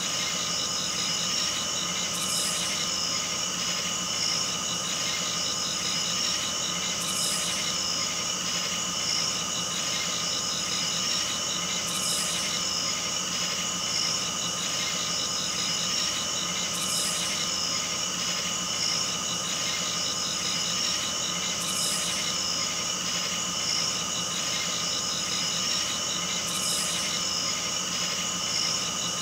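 A steady drone of several held tones, high and low together, with a short hiss that swells up about every five seconds.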